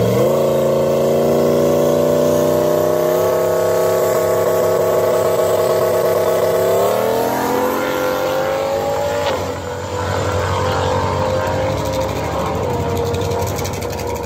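SN95 Mustang Cobra's 4.6-litre four-valve V8 held at raised revs on the starting line, then launching about seven seconds in. The engine note rises and fades as the car pulls away down the drag strip, dipping briefly near nine seconds as it shifts gear.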